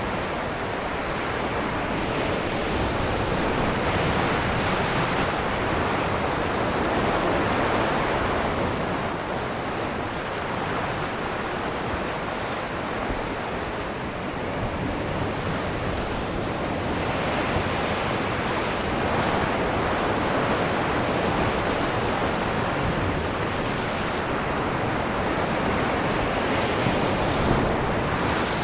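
Ocean surf washing onto a shore as a continuous rush of water noise, swelling and easing slowly as the waves come in over many seconds.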